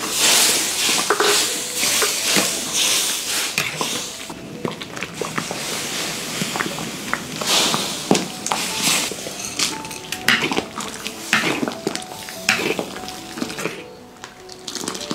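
Metal ladle stirring in a large wok of simmering soup: repeated clinks and scrapes against the pan with sloshing, hissing liquid, over background music.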